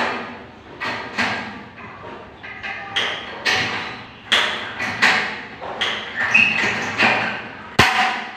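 Repeated sharp metallic knocks on a galvanized steel-stud partition frame as it is worked with hand tools, about a dozen uneven strikes that each ring briefly.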